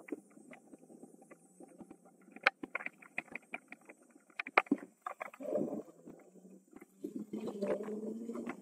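E-bike ridden over a rough paved path: scattered clicks and rattles from the bike over low wind rumble on the microphone. The rumble grows louder and steadier from about seven seconds in.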